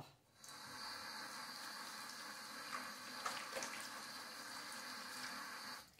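Water running from a single-lever sink faucet as soapy hands are rinsed under the stream. It starts about half a second in and stops suddenly just before the end as the tap is shut off.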